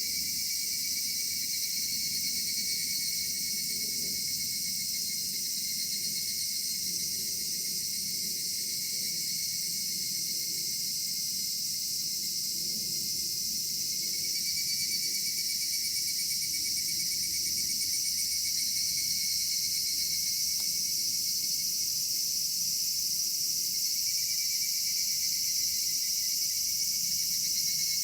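Cicadas singing in chorus: a steady, high-pitched drone of several overlapping calls, with a lower call that fades in and out several times.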